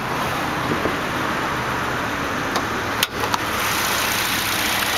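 1999 Nissan Sentra's 2.0-litre 16-valve four-cylinder engine idling steadily, heard with the hood coming open. A single sharp click about three seconds in as the hood is released and lifted.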